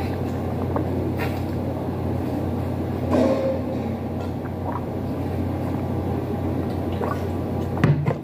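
A person gulping water from a plastic bottle, swallowing over and over without a break, with a sharp knock near the end.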